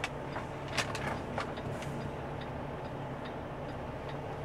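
Semi truck's diesel engine running steadily, heard from inside the cab, with a flasher relay ticking about twice a second. A few sharp knocks come in the first second and a half.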